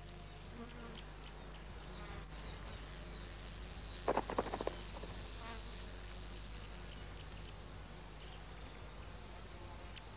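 High-pitched, fast-pulsing insect trill, swelling to its loudest from about four seconds in and cutting off suddenly just after nine seconds. A brief lower call sounds about four seconds in.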